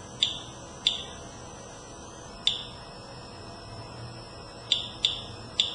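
Inspector Geiger counter clicking at random intervals, six short chirps in under six seconds, each one a detected count. The slow, irregular rate is the normal ambient background radiation reading, around 40 to 50 counts per minute.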